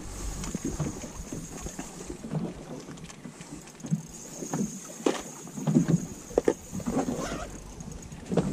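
Waves slapping and knocking irregularly against the hull of a small boat drifting on open water.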